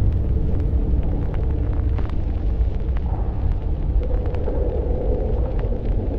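Deep, continuous storm rumble, sound-designed, with scattered faint crackles and a droning hum that swells about four seconds in.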